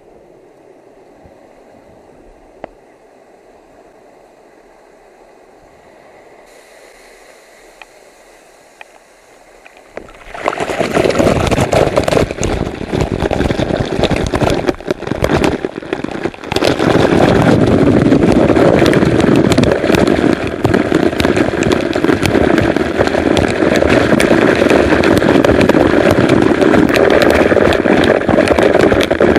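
A faint rush at first; about ten seconds in, a waterfall's falling water starts hitting the action camera directly, giving a loud, steady rush and spatter of water.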